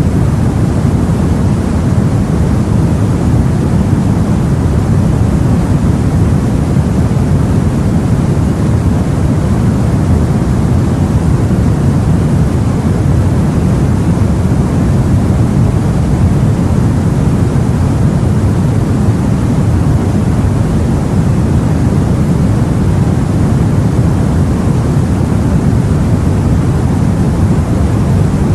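Steady, deep rumbling of sea water and wind, heard from aboard a boat, with no separate waves or splashes standing out.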